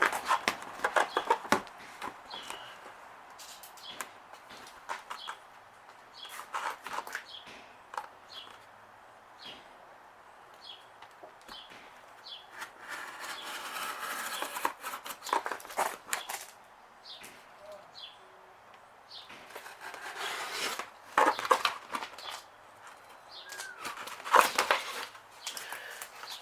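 Thin vinyl light-tint film being handled and cut by hand: irregular rustling and crinkling of the plastic sheet with scattered small clicks, including a longer rustle about halfway through.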